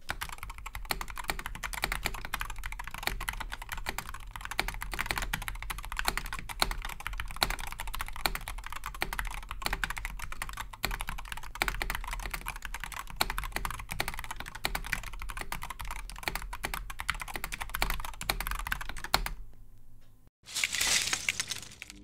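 Typing on a Wooting Two Lekker Edition keyboard with its Hall effect Lekker switches: rapid, continuous keystrokes that stop about nineteen seconds in. Near the end comes a brief, loud burst of noise.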